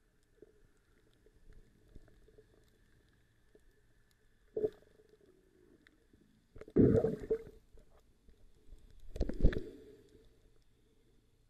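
Muffled underwater sound picked up by a camera held just below the sea surface: a low rumble, broken by a short burst of water noise just before halfway and two louder bursts, each about a second long, later on.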